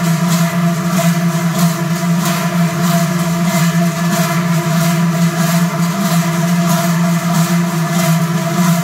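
Massed Treicheln, large hammered cowbells swung in step by marching bell-ringers: a dense, loud, continuous ringing drone with a regular rhythmic pulse.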